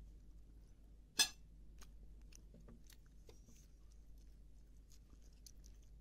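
Faint crackling and ticking of crisp grilled fish skin and flesh being torn apart by hand, with one sharp click about a second in.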